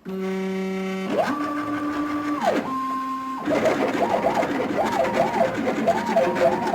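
Stepper motors of a home-built CNC machine singing as it moves a pen: first a steady low hum, then the pitch glides up, holds and drops as an axis speeds up and slows. From about three and a half seconds in, the pitches rise and fall over and over, with a scratchy noise beneath, as both axes trace a circle.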